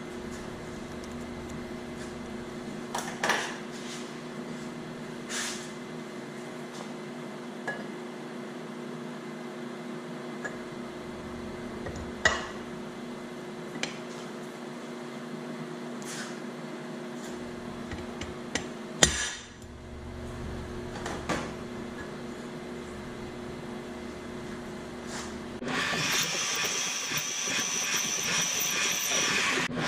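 A workshop machine tool's motor running with a steady hum, with a few sharp metal clinks and taps of tools and workpiece. About 26 s in, a louder steady hissing whir starts up.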